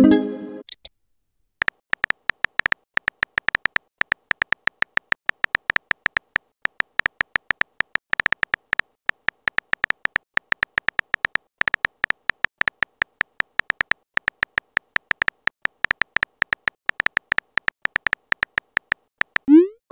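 Simulated phone-keyboard typing clicks from a texting-story app: a rapid, irregular run of short taps, one per typed letter. It opens with a brief tone as a message pops up, and a short rising swoop near the end as the next message is sent.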